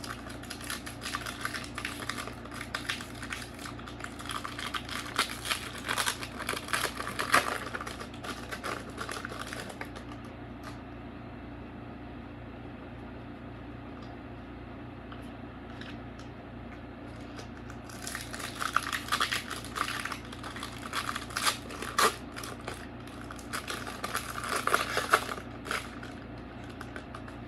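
Foil wrapper of a Pokémon booster pack crinkling as it is handled and opened, for about ten seconds; after a quieter stretch, more crinkling of the wrapper starts about eighteen seconds in and lasts some eight seconds.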